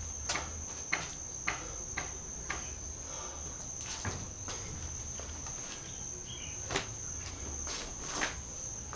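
Steady high-pitched insect chirring, with sharp taps about two a second over the first couple of seconds and a few more later, the loudest near the end.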